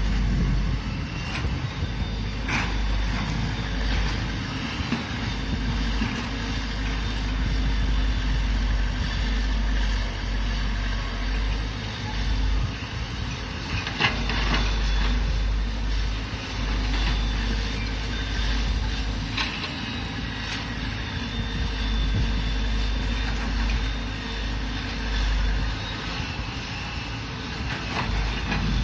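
Excavator engine running steadily as a low rumble, with a few sharp knocks now and then.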